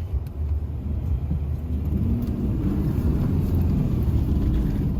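Car engine and road rumble heard from inside the cabin, with the engine note wavering up and down from about two seconds in as the car moves off through snow.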